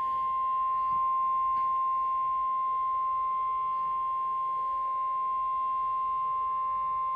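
NOAA Weather Radio warning alarm tone: a single steady electronic tone of about 1050 Hz, heard over faint radio hiss. It is the alert that comes before a severe weather warning is read out.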